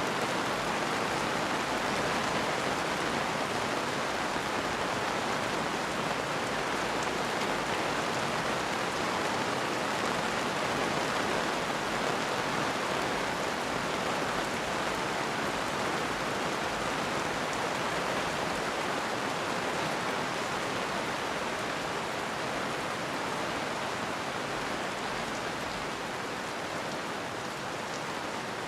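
Steady rain falling, an even hiss without thunder, easing very slightly near the end.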